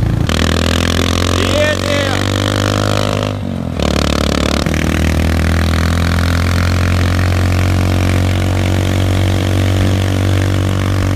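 Scooter engine running steadily under way, carrying three riders. It dips briefly about three and a half seconds in, then picks back up.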